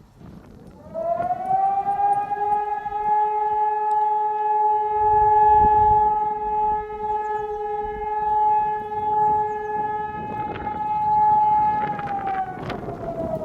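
ECi 1200 civil-defence siren sounding its weekly test alarm. Its tone climbs in about a second, holds one steady pitch for around eleven seconds, then starts to fall near the end. Gusty wind rumbles on the microphone underneath.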